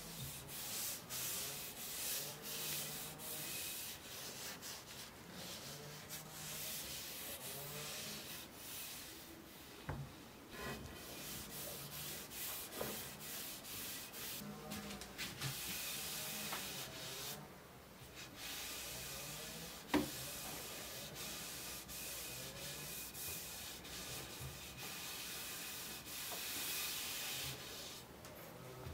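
Hand sanding: sandpaper rubbed back and forth in repeated strokes, a scratchy hiss that comes and goes, with a sharp tap about two-thirds through.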